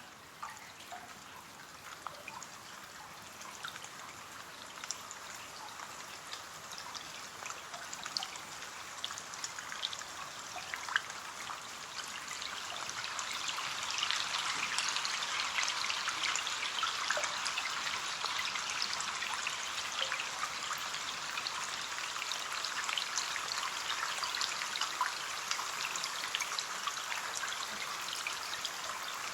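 Rain falling on a window pane: a steady hiss of rain with many separate drops ticking against the glass. It grows louder and heavier over the first dozen seconds, then holds steady.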